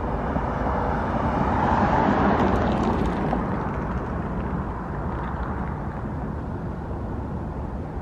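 Car on the move: steady road and engine rumble. It swells a little about two seconds in, then eases off.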